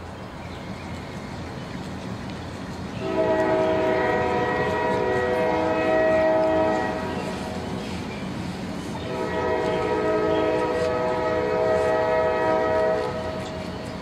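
Train horn sounding two long blasts of about four seconds each, a held chord of several steady tones, the first starting about three seconds in and the second about nine seconds in.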